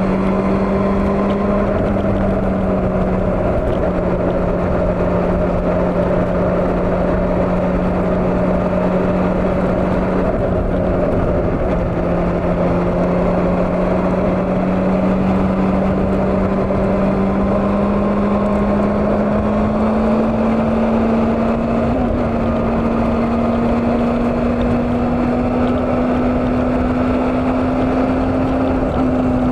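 Old Honda CB400 motorcycle engine cruising at a steady throttle, its note slowly climbing in pitch through the second half as speed builds, over rushing wind noise.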